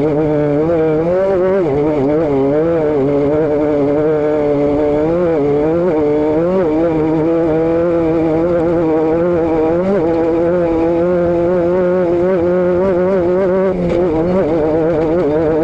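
Vehicle engine running continuously, its pitch wavering up and down slightly and never settling.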